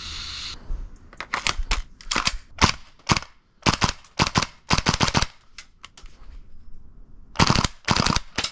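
Green gas hissing from a can into an airsoft magazine, cutting off about half a second in. Then a gas blowback airsoft rifle fires a string of sharp shots in quick succession, with a pause and a second quick group near the end.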